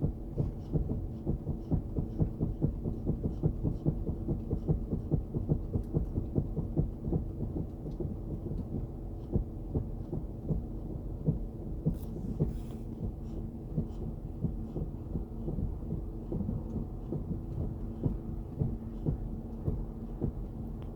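Rapid, irregular low tapping from a Chrysler 300C when the brake pedal is pressed, over a steady low hum.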